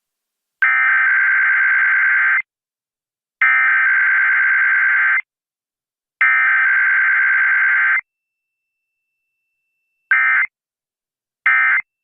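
Emergency Alert System SAME digital data bursts: the header sent three times, each burst a little under two seconds long and about a second apart. Two short end-of-message bursts follow near the end, with no attention tone or voice message between them.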